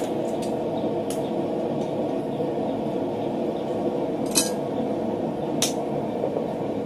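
Running forge giving a steady low rush, with a few sharp metallic clinks and knocks as a hot round steel bar is laid on a steel swage block and a handled punch is set on it. The loudest knock comes about four and a half seconds in, another a second later.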